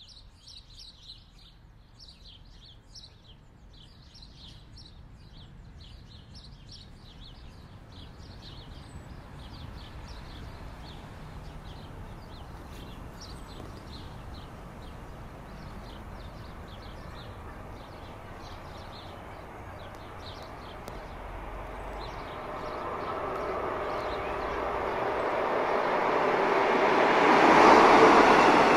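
Small birds chirping repeatedly. An electric passenger train with double-deck coaches approaches and passes, its rolling noise building steadily over the last third and loudest near the end.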